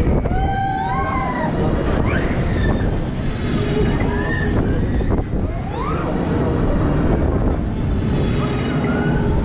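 Wind buffeting the microphone of a rider on a spinning amusement ride, a steady rushing rumble, with several short rising-and-falling shrieks from riders scattered through it.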